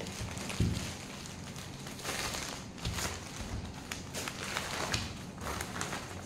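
Packaging rustling and crinkling as a parcel is unwrapped by hand: irregular crackles, with a soft knock about half a second in.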